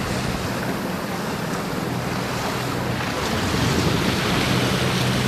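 Wind buffeting the microphone and water rushing and splashing as a tour boat runs through building waves, with the boat's engine humming steadily underneath. It grows a little louder past the middle.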